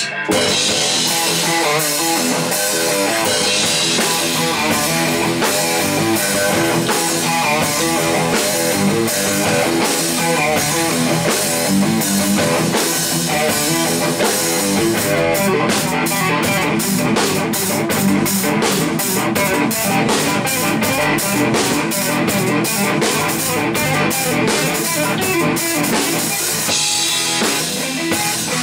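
Instrumental rock trio playing live: electric bass, electric guitar and drum kit. From about halfway through, the drums settle into a steady, even run of strokes that drops back a couple of seconds before the end.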